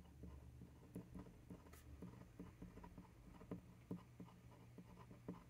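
A pen nib scratching faintly on a paper card while writing letters, many short strokes in quick succession.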